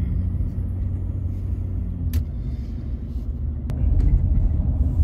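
Car driving on a snowy road, heard from inside the cabin: a steady low rumble of engine and road noise with two faint clicks, getting louder about four seconds in.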